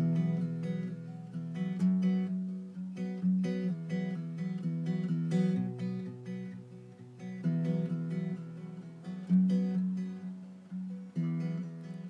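Guitar strumming chords, heard as the playback of an early iPhone voice-memo song demo.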